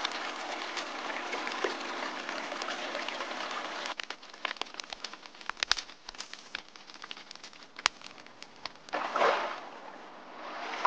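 Creek water running over stones as a steady rush. About four seconds in it gives way to a campfire crackling with scattered sharp pops, and near the end there is a brief swell of rushing noise.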